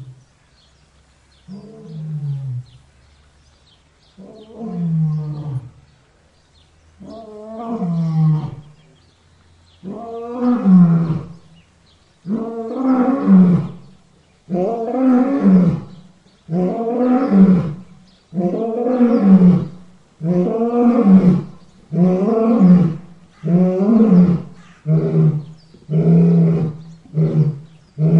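A lion roaring in a long bout: a few soft, drawn-out moans a few seconds apart build into loud, full roars coming faster and faster. Near the end they shorten into quick calls about one a second.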